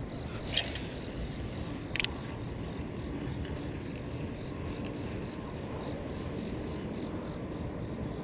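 Steady low rumbling noise with two sharp clicks, about half a second and two seconds in.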